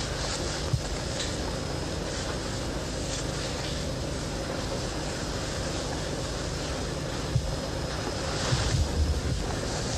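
Steady hiss and hum of an old, worn soundtrack. Two sharp clicks come about a second in and again past the middle, and there are a few low thuds near the end.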